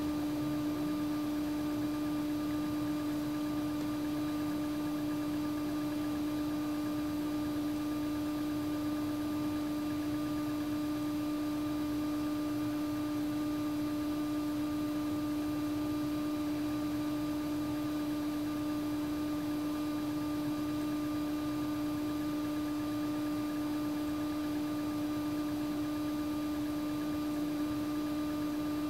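Steady hum at one unchanging pitch, with fainter overtones above it.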